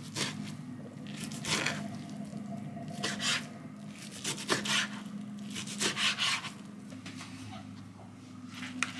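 Kitchen knife cutting boiled spinach on a cutting board: about six separate cuts and scrapes spaced irregularly a second or so apart, over a low steady hum.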